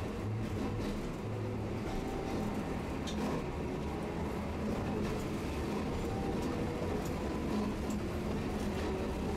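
Tosaden streetcar running, heard from on board: a steady low rumble with a droning hum and a few faint clicks.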